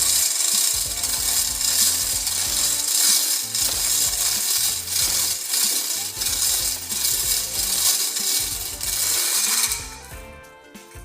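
Metalworking on a steel door: a harsh, steady hiss that stops about ten seconds in.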